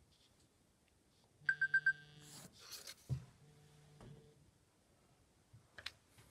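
Mobile phone alarm going off: four quick high beeps about one and a half seconds in, over a low steady tone that sounds again for about a second shortly after.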